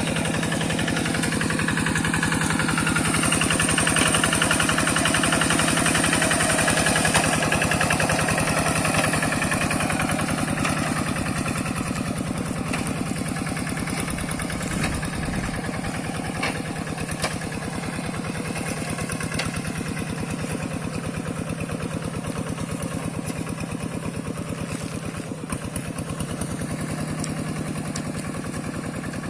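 Two-wheel hand tractor's single-cylinder diesel engine running steadily with a fast, even firing beat. It grows louder over the first several seconds, then slowly eases off.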